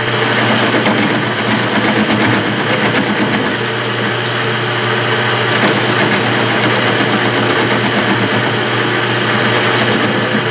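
Metal lathe running steadily while the cutting tool takes a facing cut across the end of a 1957 Chevy steering-box sector shaft, taking off the damaged teeth. A constant motor hum sits under the scrape of the cut.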